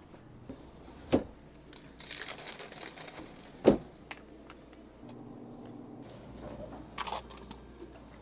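Handling noises of picking items off store shelves: a few sharp clicks and knocks from doors and handles, and a crinkle of a plastic drink pouch about two seconds in. The loudest knock comes near the middle.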